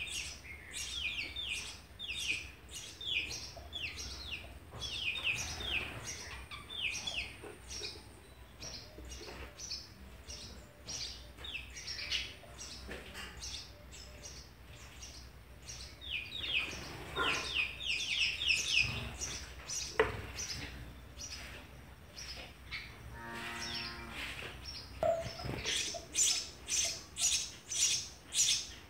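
House sparrow nestlings begging from inside a nest box while an adult feeds them: runs of quick, high chirps, several a second, busiest at the start, about halfway through and again near the end. A single sharp tap about two-thirds of the way in.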